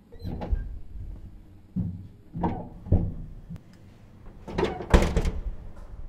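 A sliding metal lift door being pushed and banged: a series of thumps and rattles, with a cluster of louder bangs near the end.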